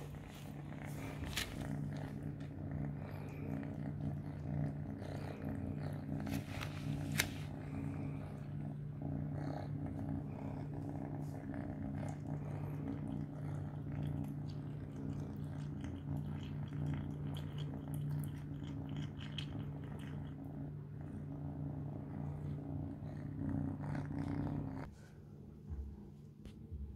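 Three-month-old ginger kitten purring steadily while eating mealworms, a continuous low rumble that stops near the end. There are a few sharp clicks in the first several seconds.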